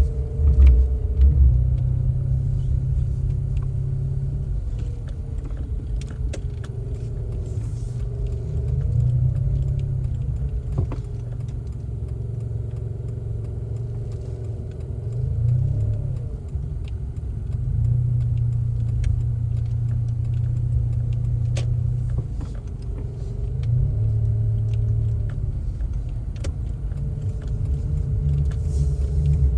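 Car driving: steady low engine and road rumble, with the engine's pitch rising and falling several times as speed changes, and scattered light clicks and rattles.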